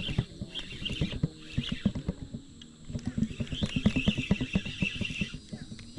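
Fishing reel clicking rapidly and unevenly while a hooked smallmouth bass is played in.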